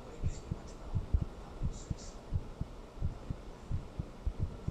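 A human heartbeat recorded close up: a steady run of short, dull low thumps, several a second, over a low hum, with a few faint scratchy rustles from the recording.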